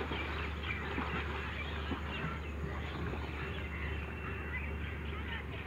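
Many birds chirping and calling at once in quick, overlapping short notes, over a steady low rumble.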